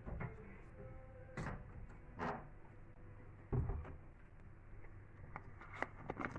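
Kitchen containers and utensils being handled on a counter: a few separate light knocks and clunks spread through, over a low steady background hum.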